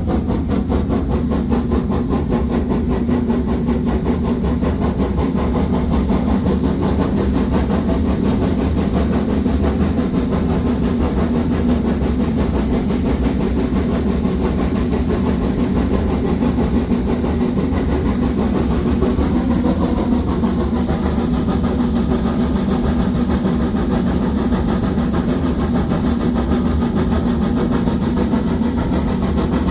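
Narrow-gauge 2-10-2 tank steam locomotive 99 7240-7 working hard up a 1-in-25 gradient with a heavy train, its exhaust beating in a fast, steady rhythm.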